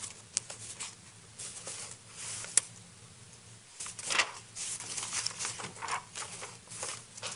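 Papers rustling and scattered small clicks and knocks of handling at desks, with one sharp click about two and a half seconds in.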